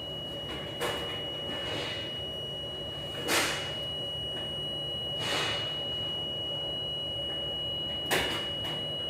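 Galley dishwashing machinery running with a steady hum and a constant high whine, broken by four sudden bangs and whooshes from doors or dish racks sliding and knocking, the loudest about three seconds in.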